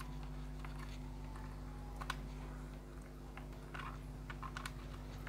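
Scattered light clicks and taps of RCA cable plugs being pushed into the back of a set-top box and the box being handled, over a steady low electrical hum.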